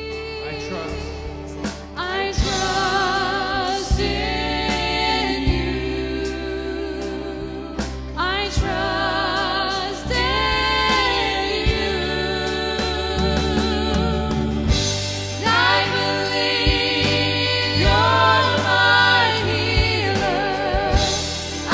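Contemporary worship band playing live: voices singing a slow song with vibrato over guitars, keyboard and a drum kit, with sharp drum hits scattered through it.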